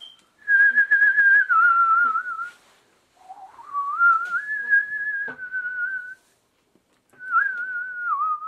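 A person whistling a warbling tune in three phrases, each a couple of seconds long, with slides and small wobbles in pitch.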